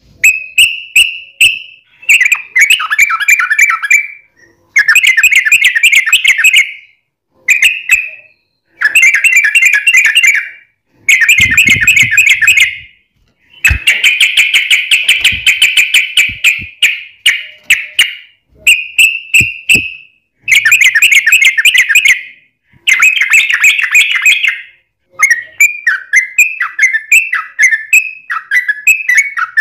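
Yellow-vented bulbul (trucukan) singing loud, fast bubbling phrases of one to two seconds, with short pauses between them: the long rapid 'ropel' song that keepers use as a lure. Near the end it breaks into a run of quick falling notes.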